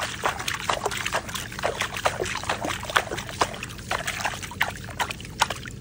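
Water splashing and trickling in a rapid, irregular patter of small splashes, in an opened irrigation pipe that keeps refilling with water from the line.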